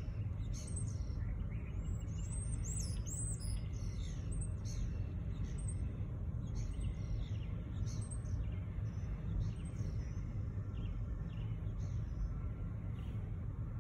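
Small birds chirping and twittering, busiest in the first five seconds and sparser after, over the steady low rumble of a slow-moving double-stack intermodal freight train rolling past.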